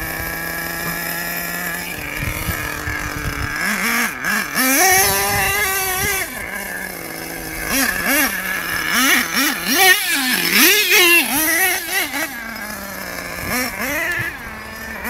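Small nitro engine of a radio-controlled off-road monster truck, idling steadily at first. From about four seconds in, the throttle is blipped over and over, so the high engine note rises and falls quickly, then it settles back toward a steadier note near the end.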